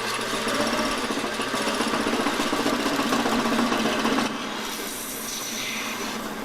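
Turning tool cutting into a resin bowl spinning on a wood lathe, a steady rough scraping hiss. About four seconds in the cut eases off and the lathe keeps running more quietly.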